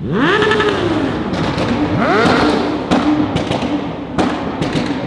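A supercar engine revved hard twice, each rev rising sharply and falling back, then settling into a steady note, with loud sharp bangs from the exhaust cracking in repeatedly.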